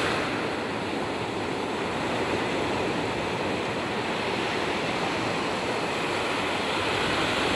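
Steady wash of ocean surf on the beach.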